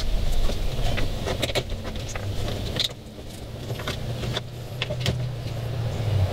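Scattered clicks and light rattles of heavy battery cables and plastic wire guides being handled and fitted, over a steady low hum.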